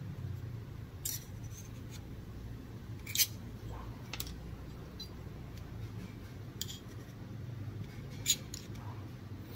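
A handful of sharp clicks and taps from a metal scraper on a resin 3D printer's metal build plate as cured resin test squares, stuck on hard, are prised off and set down; the loudest comes about three seconds in. A low steady hum lies under it.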